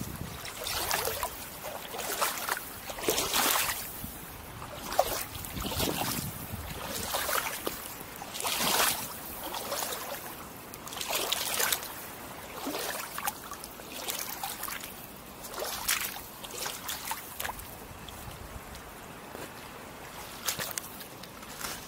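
Wellington boots wading through shallow river water, a splash and swish with each step at about one a second, the steps growing fainter over the last few seconds.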